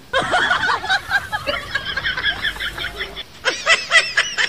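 A chorus of many overlapping short, high chirping animal calls, followed near the end by a quicker run of repeated calls, about four or five a second.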